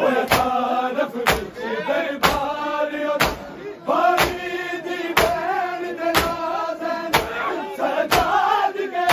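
Mourners doing matam, beating their chests in unison with one sharp slap about once a second, under men's voices chanting a drawn-out noha refrain.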